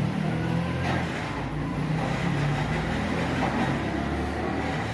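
A steady low engine rumble, like a vehicle running close by.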